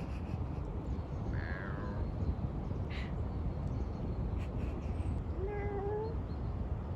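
Two short animal calls over a steady low background rumble: a brief higher cry about a second and a half in, then a longer rising, meow-like call about five and a half seconds in.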